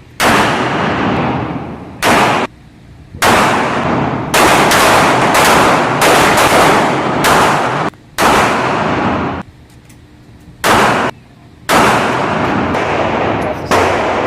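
Gunshots from firearms at a shooting range: about a dozen loud shots at an irregular pace, several in quick succession, each with a long echoing tail.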